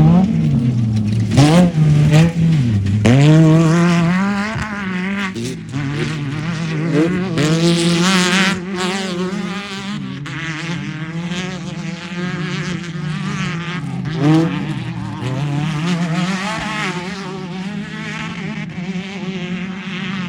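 Off-road race car engines revving high and dropping off again and again as the cars drive past, with several engines sounding at once around the middle.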